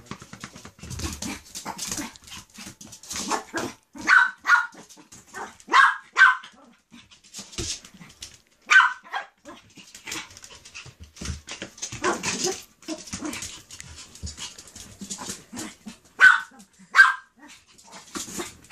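A puppy barking in short, sharp yips, often two in quick succession, with scuffling and tapping noises between the barks.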